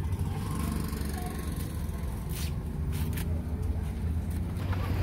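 Steady low rumble of street traffic and idling motor engines, with a couple of brief high rustles about two and a half and three seconds in.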